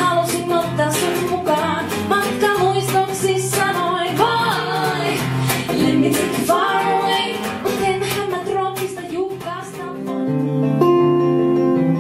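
A woman singing into a microphone over a strummed acoustic guitar. About ten and a half seconds in, the music changes abruptly to a louder passage with held notes.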